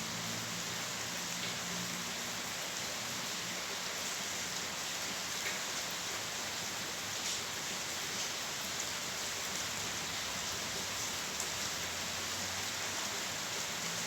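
Steady rain falling, with no thunder. A few individual drops tick out above the even hiss.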